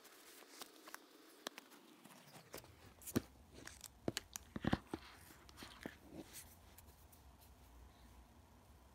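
Faint clicks and taps of a new iPhone and its cardboard box being handled as the phone is lifted out of its tray, with a few sharper knocks between about three and five seconds in.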